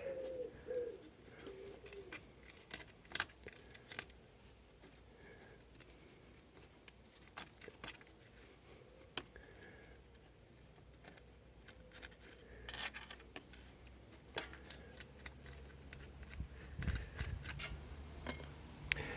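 Light metal clicks, clinks and rubbing of hand tools and engine parts being handled on a workbench, coming irregularly with quiet gaps between them.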